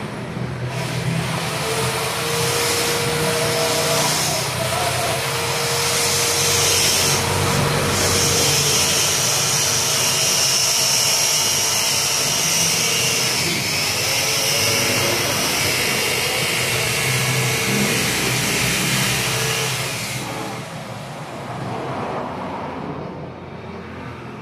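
Loud, steady mechanical noise with a whine running through it, fading out about twenty seconds in.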